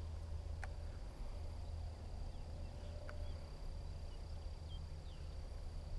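Outdoor ambience: a steady low rumble like wind on the microphone under a thin, steady high insect drone. A couple of faint clicks come in the first second or so, and a few short high chirps about halfway through.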